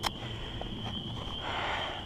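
Footsteps through wet leaf litter with low rumbling camera-handling noise and a few faint ticks, under a steady high-pitched tone.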